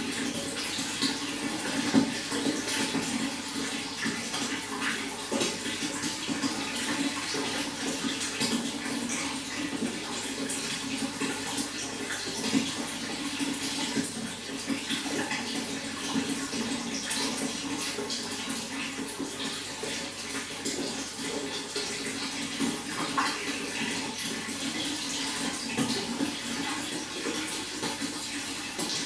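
Running water pouring and splashing in a steady, continuous wash, full of small irregular splashes.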